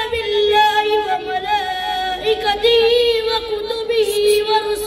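A boy's voice chanting Qur'an recitation (tilawat) into a microphone, drawing out long held notes with small melodic turns.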